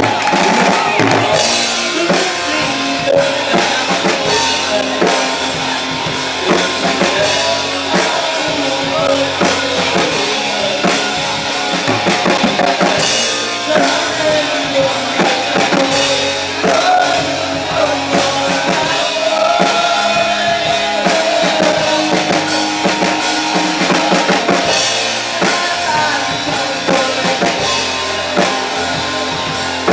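Rock band music with a full drum kit driving a steady beat and a lead melody line bending up and down in pitch over it.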